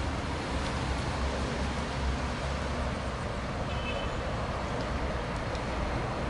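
Steady road-traffic rumble with a deep low hum, and a brief faint high tone about two-thirds of the way through.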